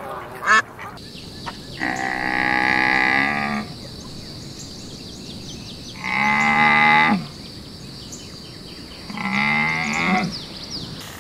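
A young dromedary camel calling three times: long, bellowing moans, each lasting one to two seconds, with pauses between.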